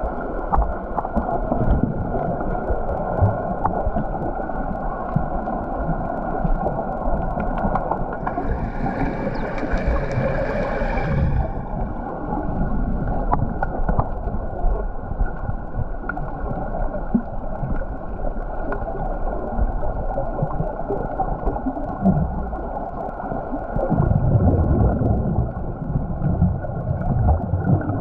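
Underwater sound from a camera submerged in a swimming pool: muffled bubbling, gurgling and small knocks from swimmers moving through the water, over a steady hum. A higher hiss rises for about three seconds about eight seconds in, and the low rumbling grows louder near the end.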